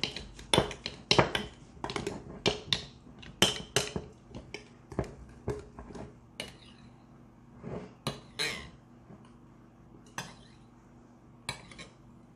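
A spoon clinking and scraping against the inside of a glass mason jar while stirring thick flour-and-water sourdough starter. Quick repeated clinks for the first half, then slower, scattered taps.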